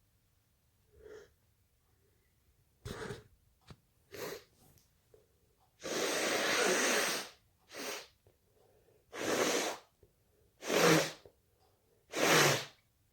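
A person sneezing again and again in short, sudden bursts, with quieter breaths between them. One burst about halfway through lasts over a second, and the last three sneezes, about a second and a half apart, are the loudest.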